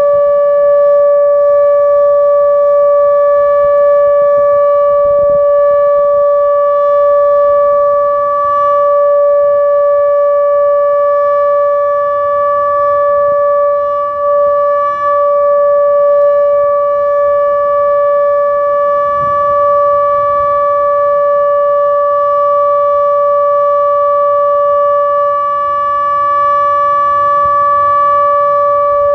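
Outdoor tornado warning siren sounding a loud, steady tone held at one pitch, as in a routine siren test.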